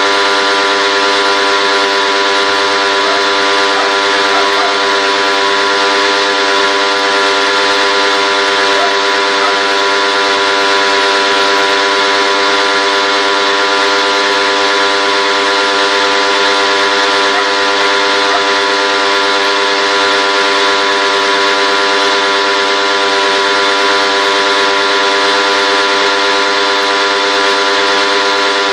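A machine running steadily: an unchanging hum with many overtones over a constant hiss.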